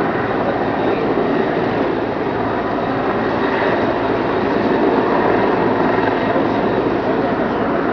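Rescue helicopter's rotor and engine running steadily, a loud continuous noise with no change in level.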